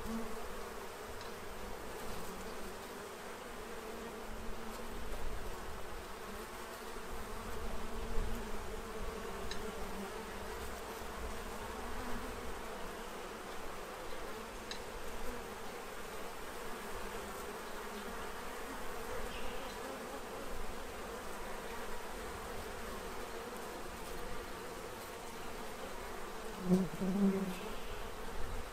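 A crowd of honey bees buzzing in a steady hum as they fly around and land on a feeder. Near the end, one bee buzzes loudly past close by.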